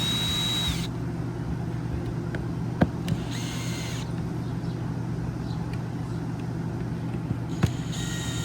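Cordless drill-driver driving screws into an RV roof vent cap in three short bursts of whine, a little at a time to seat the cap evenly, with a couple of sharp clicks in between, over a steady low hum.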